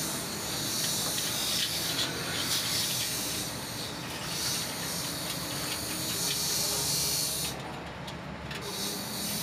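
Stiff plastic brush scrubbing a greasy motorcycle part in a tub of dark oily cleaning liquid: steady scratchy scrubbing with liquid sloshing, stopping for about a second near the end.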